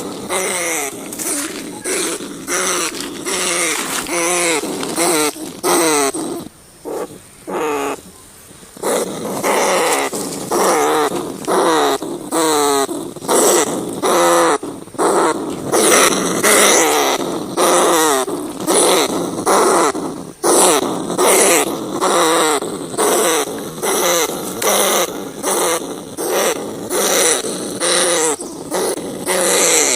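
Rats squealing and grunting in a long run of quavering calls, about two a second, with a brief quieter spell partway through.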